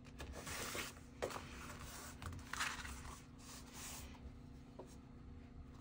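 Kraft cardstock rubbing and rustling as hands press and slide a pocket panel flat onto a base page, in several short scrapes that die away in the second half.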